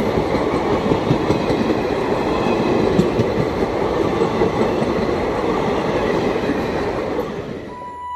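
Express passenger train running past at speed: a dense, steady rush of wheels on rail with a clickety-clack of rail joints. Near the end it fades and cuts to a steady electronic tone.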